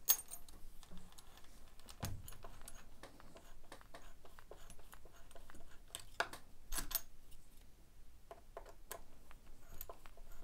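Irregular small clicks and metallic taps from a hand screwdriver turning self-tapping screws into a cordless chainsaw's housing, fixing the chain catcher and bumper spike, with the metal parts knocking against the screwdriver and housing. One sharp click right at the start is the loudest.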